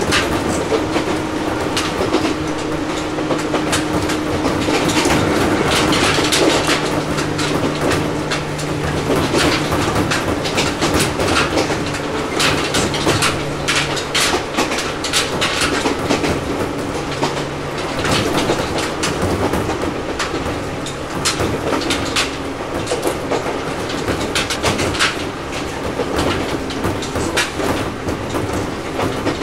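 Ohmi Railway 800 series electric train heard from inside motor car MoHa 1809 while running: a steady hum under the running noise, with irregular clicks and clatter of the wheels over rail joints.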